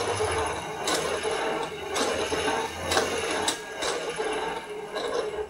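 LEGO WeDo motor and gear train running steadily, driving the goalkeeper, with sharp clicks about once a second. The motor speed is set by the motion sensor reading, so the speed of the whir shows how close the kicker is.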